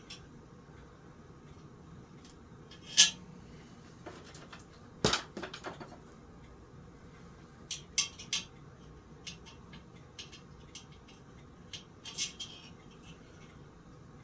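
Small metal parts and tools clinking and knocking as a ceiling fan is worked on by hand: scattered taps, with a sharp knock about three seconds in and another short cluster about two seconds later.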